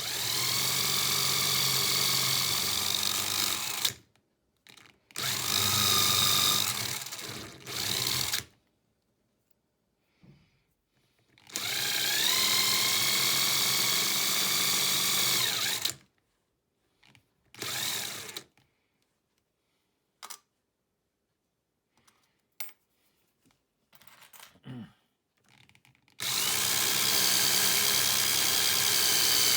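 A small electric power tool polishing handmade spoon lures, run in bursts of a few seconds with pauses between: five runs, its whine sliding in pitch as a run starts. Small clicks and knocks fall in the gaps.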